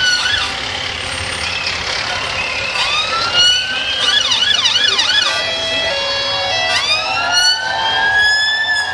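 Emergency vehicle sirens sounding loudly, with slow rising wails, then a fast warbling yelp about four seconds in that lasts about a second, then a steady tone, and another rising wail about seven seconds in.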